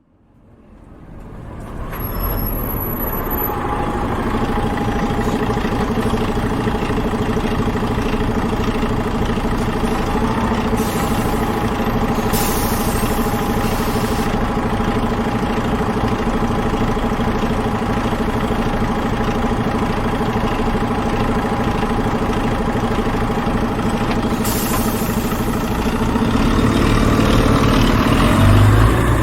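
City bus diesel engine idling steadily after fading in as the bus arrives. Short hisses of air from the brakes come three times. The engine grows louder near the end as the bus starts to pull away.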